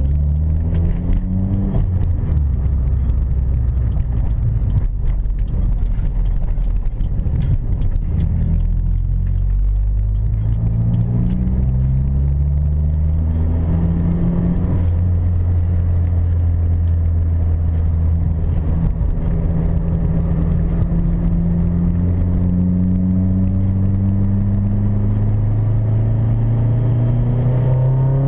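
Turbocharged 2.2 L Ecotec L61 four-cylinder of a 2005 Chevrolet Cobalt with a ZZP Borg Warner S256 turbo kit, heard from inside the cabin while driving. The engine note climbs in pitch and falls back, climbs again about a third of the way in, then holds steady, and rises once more near the end.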